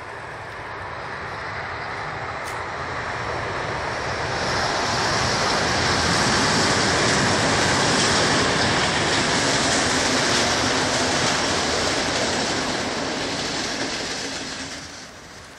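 Steady rushing noise of a passing vehicle that builds over about five seconds, holds, then fades near the end.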